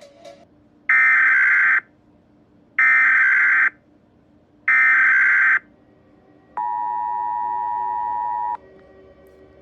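Emergency Alert System SAME header: three loud bursts of warbling digital data tones, each just under a second long and about a second apart, followed by the EAS attention signal, a steady two-note tone held for about two seconds.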